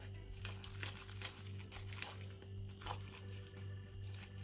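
A wooden stick stirring and scraping sticky slime around a plastic bowl: soft, irregular sticky crackles and ticks, as the slime begins to come together and gather off the bowl's sides. A steady low hum runs underneath.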